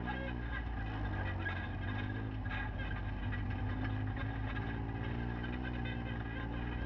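Polaris RZR side-by-side engines running on a rough dirt trail, with the revs rising and falling as the machines drive along, over the rumble of tyres on gravel.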